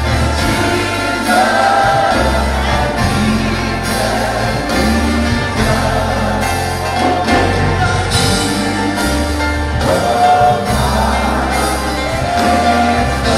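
Congregation and worship band performing a gospel worship song: sung melody over instrumental accompaniment with long held bass notes, in a large reverberant hall.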